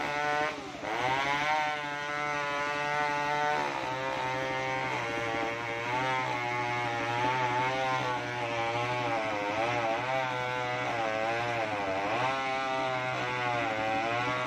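Large two-stroke chainsaw (a New West 070 with a 36-inch Stihl bar) ripping lengthwise through a coconut log, running at full throttle. The engine speed sags sharply just after the start, then keeps dipping and recovering as the long bar loads up in the cut.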